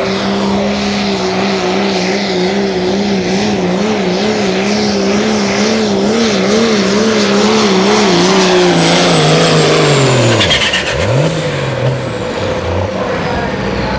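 Pulling truck's engine running hard under load, its pitch holding high and wavering quickly, then dropping steeply about nine seconds in as the throttle comes off, with one brief rev near the end.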